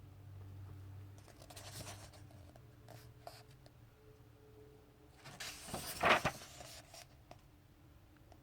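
Pages of a graphic novel being turned by hand, paper rustling. The loudest page turn comes about two-thirds of the way through and lasts about a second and a half.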